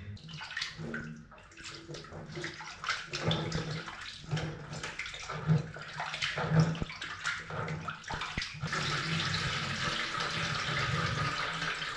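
Raw chicken pieces being washed by hand in a plastic bowl in a stainless steel sink: irregular splashing and handling sounds, then a steady stream from the tap from about nine seconds in.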